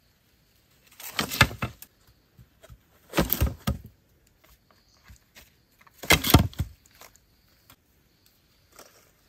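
Sticks and dry leaf litter being handled: three short bursts of rustling and crackling, about a second in, at three seconds and at six seconds, with a few faint clicks between.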